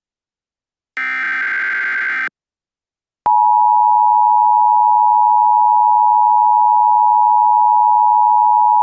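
Emergency Alert System signalling: a short burst of digital SAME header data tones, then, about a second later, the EAS two-tone attention signal (853 and 960 Hz) starts and holds loud and steady.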